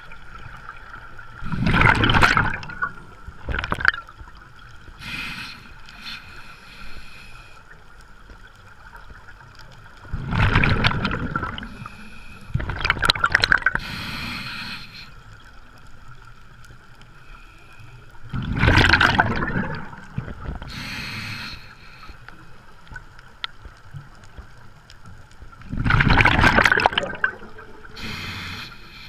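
Scuba diver breathing through a regulator underwater: a loud rush of exhaled bubbles five times, with quieter hissing inhalations through the demand valve in between.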